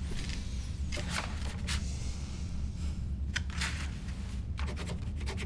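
Pen scratching across paper in short strokes as a document is signed, with light paper handling, over a steady low room hum.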